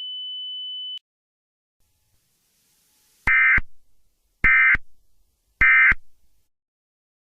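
A steady high electronic tone cuts off about a second in. Then come three short, identical buzzy data bursts about a second apart: the Emergency Alert System end-of-message (EOM) SAME tones that close an alert broadcast.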